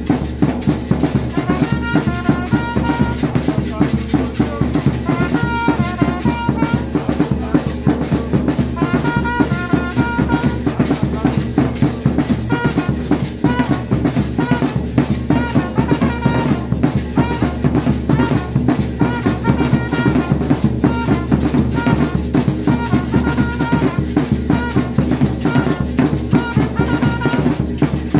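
Percussion ensemble of large double-headed bass drums and smaller hand drums playing a fast, steady, dense beat. Over it a higher-pitched instrument plays short melodic phrases that recur every couple of seconds.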